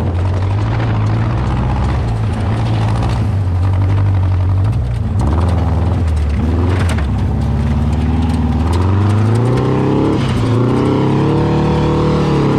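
Racing dune buggy engine running under way. Its pitch climbs in the second half, dips briefly, then climbs again as it revs up.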